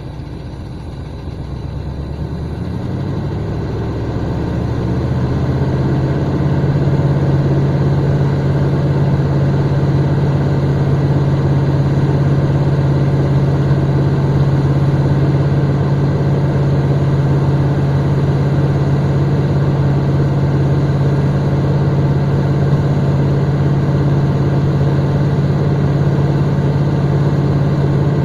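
1982 GMC crew cab's 350 small-block Chevy V8 running, heard at the tailpipe: its speed and loudness climb over the first five or six seconds, then hold steady on the throttle. The engine is burning off STP engine treatment soaked through the carburetor, along with carbon buildup.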